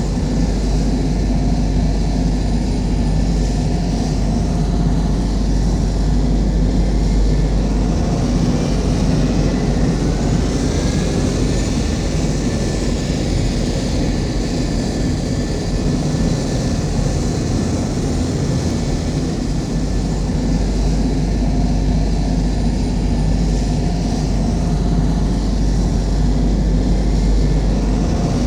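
Millennium Falcon exterior engine sound effect from Star Wars: a steady, deep engine rumble under an even hiss, holding constant as a loop.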